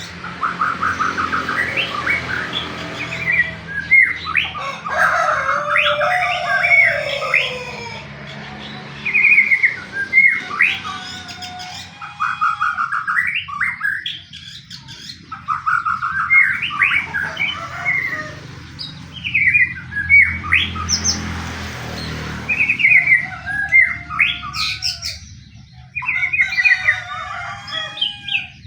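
White-rumped shama (murai batu) singing its aggressive fighting song, rapid trills, repeated sharp notes and whistled glides in bursts with short pauses, over a faint low hum. This is the challenge song used as a lure to provoke other shamas into singing.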